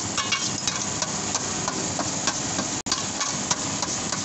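A metal spoon clinking and scraping against a stainless steel shawarma tray as shaved chicken is gathered up, in repeated short clicks, some with a brief metallic ring, over a steady background rumble.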